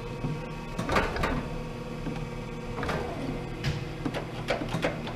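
Hydraulic surface grinder running through its automatic grinding cycle: a steady hum from the wheel spindle and hydraulic pump, with several sharp clicks and knocks from the reciprocating table and its feed mechanism.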